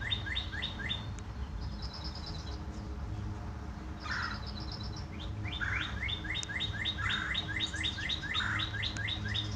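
A songbird singing long runs of quick down-slurred whistles, about five a second, in two bouts; between them come two short, rapid, higher trills.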